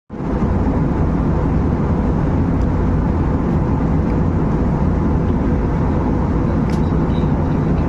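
Steady, even rushing noise of an airliner in flight, engines and airflow heard from inside the passenger cabin.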